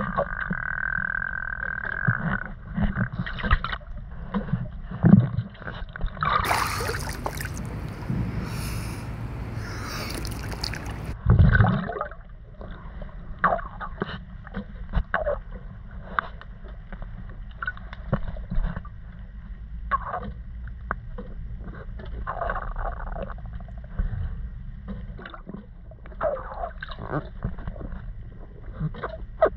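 Muffled underwater sound in a swimming pool: a low rumble with bubbling and gurgling, and scattered small knocks and rustles as hands handle a phone box, its packaging and the phone. A steady high tone stops about two seconds in, and from about six seconds in comes a five-second stretch of louder rushing, splashing noise.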